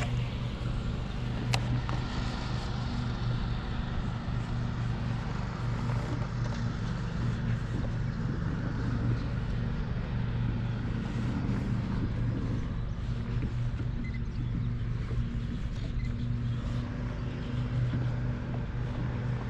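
A steady, low motor drone holding one pitch, with a faint hiss over it.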